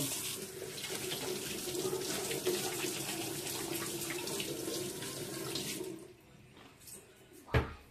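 Kitchen tap running into a sink with steady splashing, shut off about six seconds in. A single sharp knock follows near the end.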